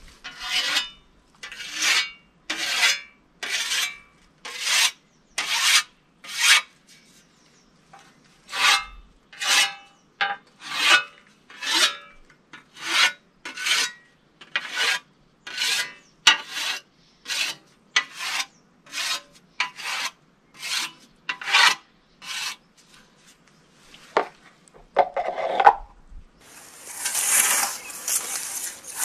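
Whetstone drawn along the edge of a scythe blade, a rasping scrape about once a second, passing on alternate sides of the blade to hone the edge and take off the fine metal burr. The strokes stop a few seconds before the end and give way to a steady hiss.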